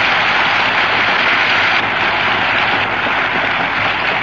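Studio audience applauding: a dense, steady clatter of many hands clapping that eases a little about two seconds in.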